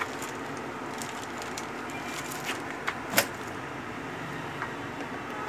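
A screwdriver and a metal clamp plate being worked on a sewing machine's table, giving a few short clicks with one sharper click a little after three seconds in, over steady background noise.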